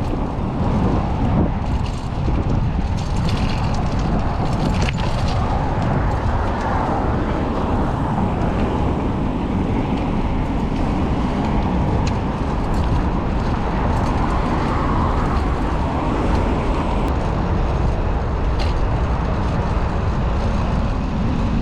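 Wind rushing over the microphone and city traffic going by during a bicycle ride on a street, a steady, loud, noisy rush heavy in the low end, with a few faint ticks.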